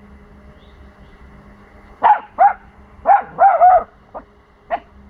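Four-month-old pomsky puppy (Pomeranian–husky cross) giving a string of high-pitched barks starting about two seconds in: two barks, a quick run of about four, then a couple more spaced out. Alert, territorial barking at unfamiliar sounds coming from next door.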